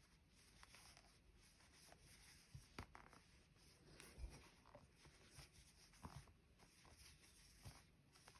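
Near silence with faint, irregular soft clicks and rustles of crocheting: a metal crochet hook pulling plush chenille yarn through stitches.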